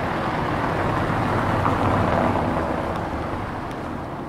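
A vehicle passing on a wet street: the rushing tyre hiss swells to a peak about two seconds in, then fades away.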